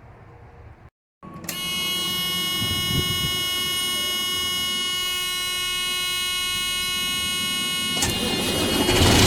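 The truck's dashboard warning buzzer sounds a steady high tone for several seconds with the ignition on. This is typical of the low-air-pressure warning before the brake system has built up air. The buzzer cuts off near the end as the Freightliner's diesel engine cranks and starts.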